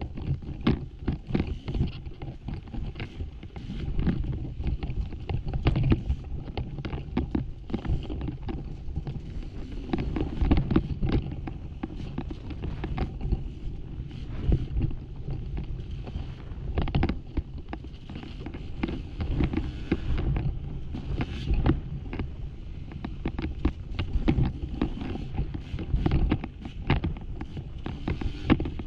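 Off-road dirt bike engine running and revving under load on a trail ride, with wind buffeting the microphone and frequent knocks and rattles.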